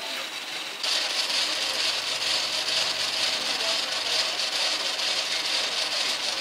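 Steady hiss from a charcoal skewer grill with skewers of curry fish-paste balls over the coals, starting abruptly about a second in.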